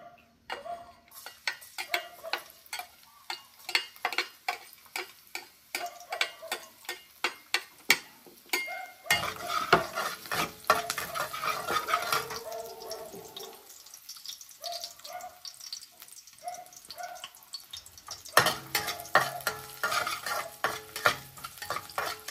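Metal spatula stirring and scraping chopped garlic around a metal wok on a gas burner, with rapid clicks and taps against the pan. Garlic sizzling in hot oil, the sizzle strongest from about nine seconds in; the stirring picks up again near the end.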